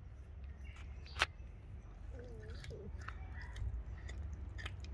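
F1 Savannah cat chewing and biting a raw chicken leg: scattered wet clicks and crunches, with one sharp crack about a second in.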